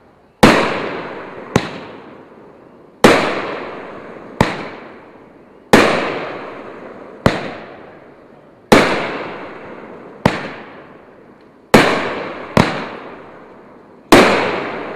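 Pyro Demon 'Heavy Duty' aerial firework going off shot after shot: about eleven sharp bangs, roughly one every second and a half, each trailing off in a long echo.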